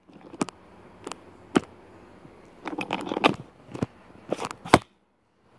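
Handling noise from a phone being shaken and gripped: irregular sharp clicks and brief scrapes of fingers and clothing rubbing against the microphone, bunched together around the middle, before the sound drops out completely near the end.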